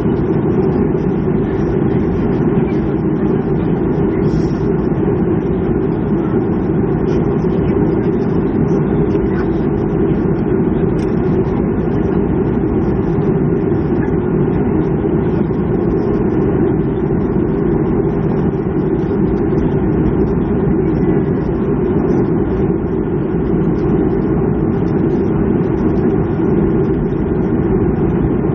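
Steady, loud drone heard inside the cabin of a Boeing 737-300 airliner, with the same level throughout.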